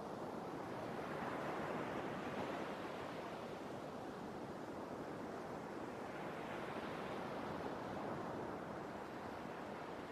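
Sea waves washing ashore, the surf swelling twice, about five seconds apart.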